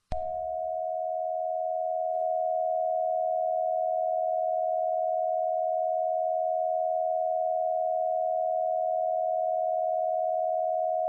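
Steady electronic alert tone: a single pitch a little under 700 Hz held at an even level for about eleven seconds, then cut off abruptly.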